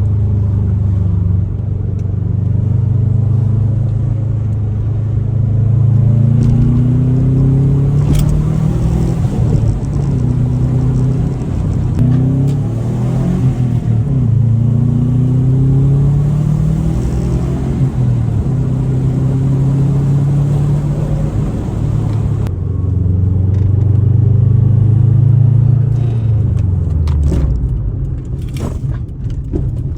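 2003 Subaru WRX's turbocharged flat-four engine under way, its pitch climbing again and again as the car pulls through the gears and dropping back at each shift, then falling away near the end as it slows.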